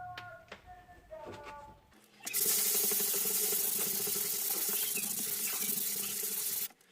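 Sanding a dried drywall joint-compound patch: a loud steady scratchy hiss starts abruptly about two seconds in and cuts off suddenly about four and a half seconds later.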